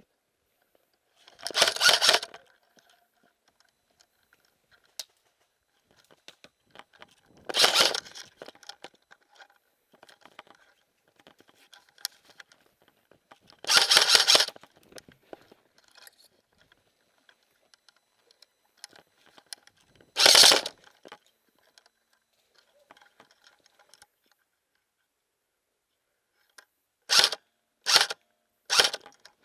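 Airsoft electric rifle firing in short bursts: four bursts of under a second each, several seconds apart, then three quick short bursts near the end.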